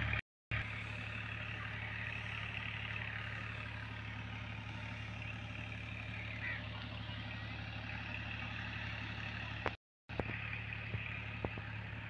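A steady low mechanical drone, like an engine running at a constant speed, with a faint hiss above it; the sound cuts out briefly twice.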